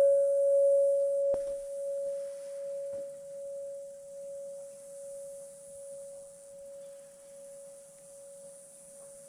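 Large tube wind chime ringing one sustained note, with a light strike about a second in, then slowly dying away.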